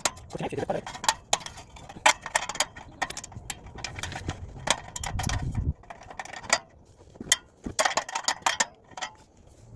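Irregular metallic clicks and clinks of a hand tool working the clamp screws of a clamp-on exhaust tip.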